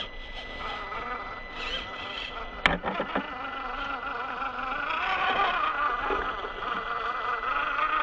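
FMS FCX24 Unimog 421 RC crawler's small electric motor and gears whining, rising and falling in pitch with the throttle as it crawls over rock and getting louder in the second half. A sharp knock comes about two and a half seconds in.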